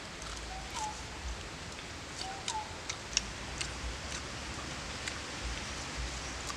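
Forest ambience: a steady hiss of background noise with a bird giving a short two-note call twice, about a second and a half apart, early on the second call's heels, plus scattered light clicks.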